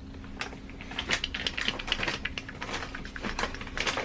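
Rapid, irregular light clicking and tapping, several clicks a second, over a faint steady hum.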